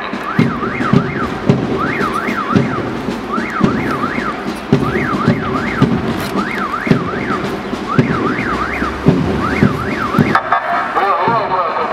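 A vehicle siren warbling in quick bursts of three up-and-down sweeps, repeating about every second and a half, over irregular low thuds.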